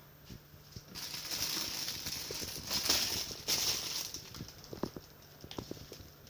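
Thin plastic bag crinkling and rustling as it is handled, loudest for about three seconds from a second in, with scattered light taps and clicks of items being moved. A faint steady low hum runs underneath.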